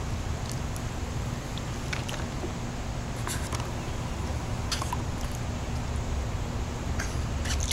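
Steady low outdoor rumble with a faint steady hum under it, and a few short, faint splashes of water in a plastic wading pool, scattered through.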